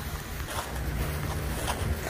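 Wind rumbling on the microphone, with a few faint footfalls on grass.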